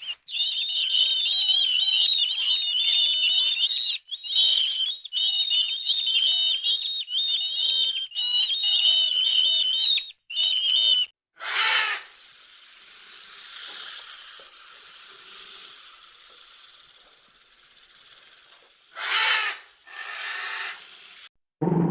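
A songbird singing a long, high, warbling song in quick phrases for about eleven seconds. Then come softer noise and two short, loud bursts.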